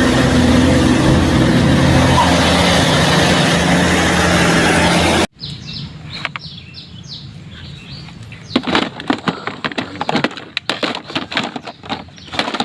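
Loud truck engine noise, steady with a low hum, for about five seconds, cutting off abruptly. Then birds chirping, with a run of clicks and clatters from toy cars being handled near the end.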